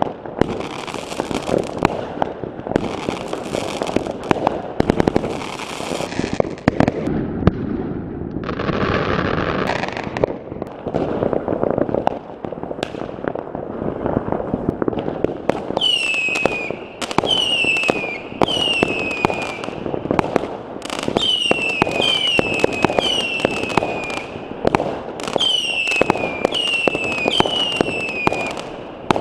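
New Year's fireworks going off in a dense run of bangs and crackles. About halfway through, a quick series of whistling fireworks starts: each whistle is about a second long and falls in pitch, roughly one a second, with pops in between.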